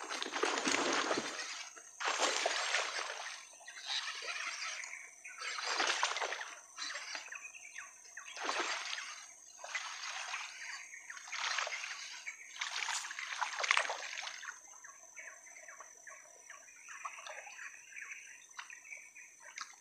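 Water splashing and sloshing in repeated surges roughly every two seconds, growing fainter for the last several seconds.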